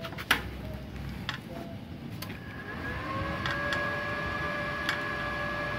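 MultiPro TIG 200A-SA inverter welder being switched on: a sharp click, then about two seconds later its cooling fan starts, rising briefly in pitch and then running with a steady whine.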